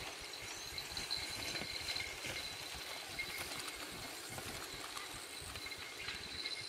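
Mountain bikes riding through tall grass: tyres and brushing grass make a soft rustle with light mechanical clicking, under a steady high-pitched ringing tone and a low rumble of wind on the microphone.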